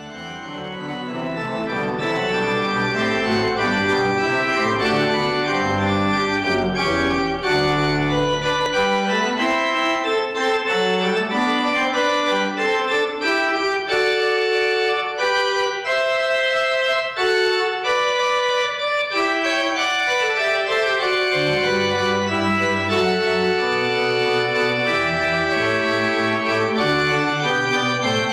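Pipe organ playing a piece in sustained chords over a low pedal bass, fading in at the start. The low bass line drops out from about nine seconds in, leaving only the higher voices, and comes back about two-thirds of the way through.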